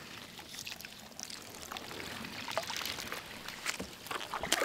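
Double-bladed kayak paddle being stroked through the water: water splashing, pouring and dripping off the blades, with scattered small knocks and drips.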